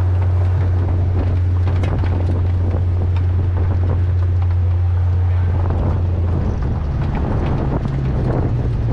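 Infiniti G37S's 3.7-litre V6 pulling at a steady pitch on track, with road and wind noise around it. About six and a half seconds in, the steady engine drone breaks up and shifts pitch, as on a lift or gear change.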